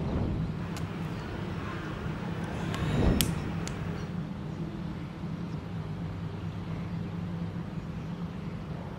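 Street traffic: a steady low engine hum, with a vehicle passing that swells up and fades about three seconds in. A few sharp clicks sound over it, the loudest as the pass peaks.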